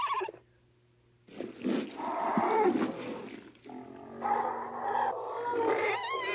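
Star Wars creature sound effects: after a short pause, a growling roar lasting about two seconds, then a longer, lower gurgling call that rises into a wavering, trilling cry near the end.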